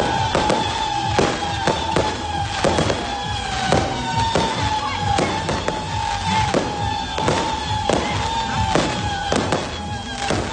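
A 36-shot consumer firework cake firing its tubes one after another, about two sharp shots a second, with a high whistle that falls slightly in pitch and restarts every couple of seconds beneath the shots.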